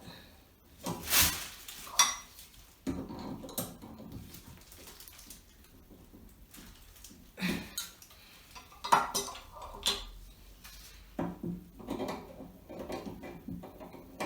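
Pliers clicking and scraping against a Moen tub-and-shower faucet cartridge stuck in the valve body as it is twisted back and forth to work it loose, in irregular metallic clicks and short scrapes.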